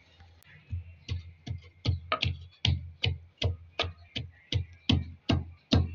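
Ginger being pounded into paste with a pestle in a mortar: a run of steady thuds, about two and a half a second, starting just under a second in.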